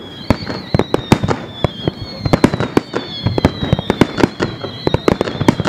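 Aerial fireworks shells bursting: a dense, irregular run of sharp bangs and booms, several a second, overlapping one another.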